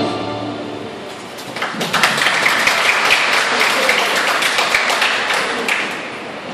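Accompanying music fades out, then audience applause starts about one and a half seconds in and dies down near the end.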